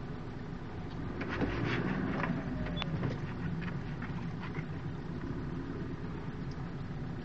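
Steady engine and road rumble inside a moving car's cabin, with a few sharp clicks and rattles in the first three seconds.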